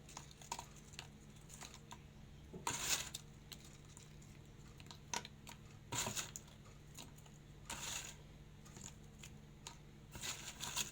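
Pieces of crisp oven-toasted baladi flatbread crackling in short bursts as they are handled, four times a few seconds apart, with light clicks in between.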